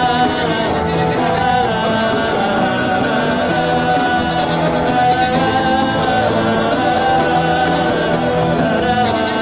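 A congregation praying aloud in tongues all at once, a continuous babble of rapidly repeated syllables like "adadada, didididi", over steady worship music.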